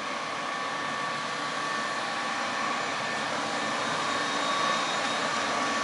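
CM-2 tool and cutter grinder's belt-driven spindle heads running, a steady motor whir with a faint high whine through it, slowly getting a little louder.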